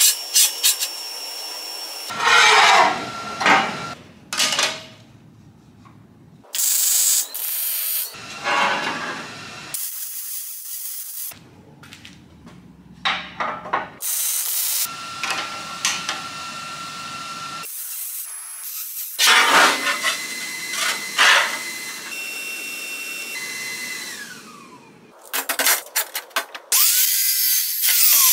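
Metal-fabrication sounds in short, abruptly cut segments: the crackle and hiss of MIG welding on steel, rubbing and grinding of metal, and clanks of steel parts being handled. Near the end comes an abrasive chop saw cutting steel.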